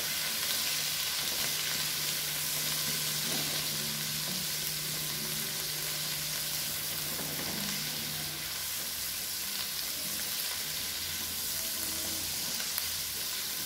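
Chili paste of fried shallots, garlic and blended bird's-eye chillies sizzling in oil in a nonstick wok as a silicone spatula stirs it: a steady frying hiss.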